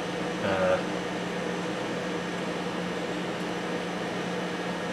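Steady room background: a constant low hum under an even hiss. A brief vocal murmur comes about half a second in.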